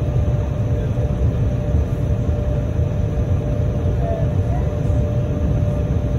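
Jet airliner cabin noise while taxiing: a steady low rumble from the engines at idle, with a constant mid-pitched hum held above it.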